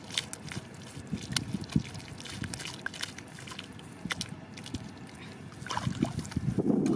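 Hands patting and smoothing wet mud, many small scattered pats and squelches. Near the end, wind buffets the microphone.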